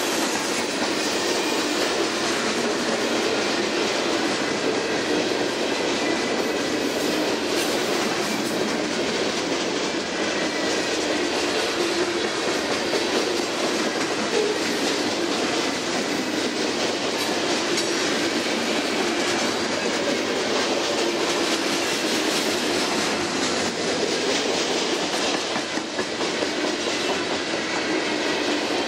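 Freight cars of a long freight train rolling steadily past: steel wheels running on the rails with a continuous rumble and clickety-clack, and a faint steady wheel squeal underneath.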